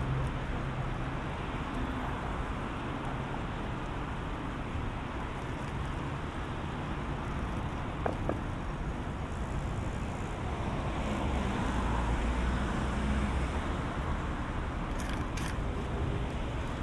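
Road traffic: a steady rumble of cars on a city street, swelling as a vehicle goes past about eleven seconds in, with one short sharp click about eight seconds in.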